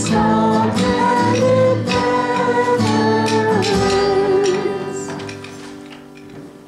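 Church congregation singing a hymn with instrumental accompaniment, reaching its final note, which is held and then fades away over the last couple of seconds.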